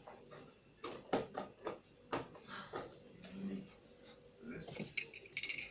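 Irregular light clicks and knocks of small objects being handled, about a dozen over a few seconds.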